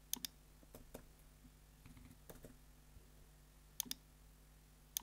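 Faint computer mouse clicks and keyboard key presses while code is edited: a quick pair of clicks near the start, softer scattered taps in the first half, and another quick pair just before four seconds as the Execute script button is clicked.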